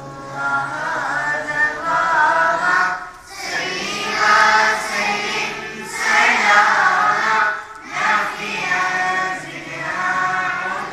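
Schoolchildren singing together in unison, in sung phrases separated by short breaks about every three to four seconds.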